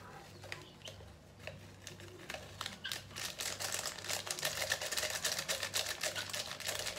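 Rapid clicking and crinkling as a plastic jerk-seasoning sachet is squeezed out and its paste scraped into a blender jar. It starts as scattered clicks and turns into a dense, busier crackle about two and a half seconds in.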